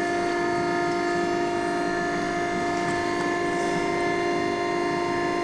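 Steady, high-pitched machine whine with several overtones, holding one pitch without change, from running equipment in a sausage-making kitchen.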